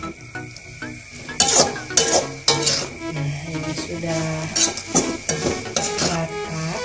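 Spatula scraping and tossing instant fried noodles and shredded cabbage around an aluminium wok in repeated strokes, over the sizzle of stir-frying.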